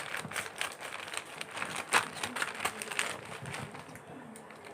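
Packaging of a mail-order parcel being handled and opened by hand: irregular crinkling and crackling, with the sharpest crackle about two seconds in, easing off near the end.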